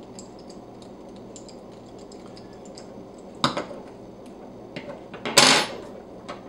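Small metal clicks and clinks from hands working the brass nozzle and heater block of a 3D-printer print core loose, with faint ticks throughout, a sharp click about three and a half seconds in and a louder brief clatter just after five seconds.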